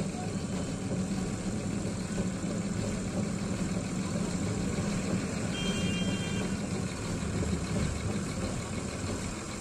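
Engine of a river vehicle ferry running under way with a steady low drone. A brief high tone sounds about halfway through.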